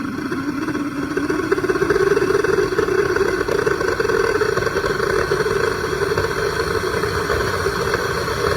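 Homemade propane-fuelled jet engine with a steel-conduit body running on forced air: a loud steady rushing noise with a hum that grows stronger about a second and a half in.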